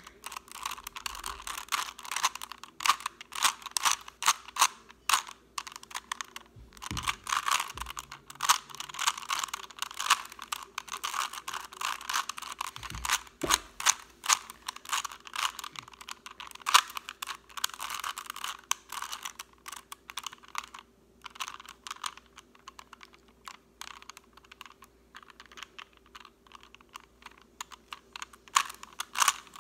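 Rubik's cube being twisted by hand: fast, irregular clicking of the plastic layers as they turn, with a few short pauses.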